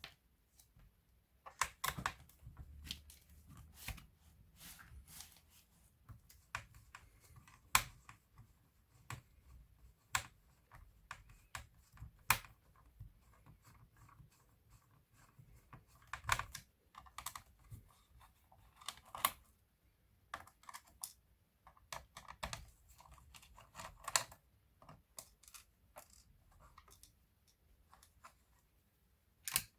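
Irregular small clicks, taps and scrapes of hand tools and plastic and metal parts on a laptop being taken apart, the Acer 5733 notebook.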